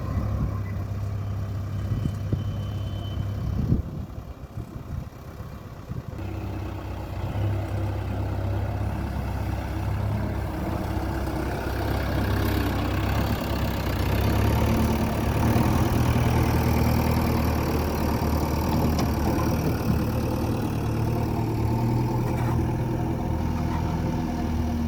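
JCB 3DX backhoe loader's diesel engine running, with a brief drop in level about four seconds in, then louder in the second half.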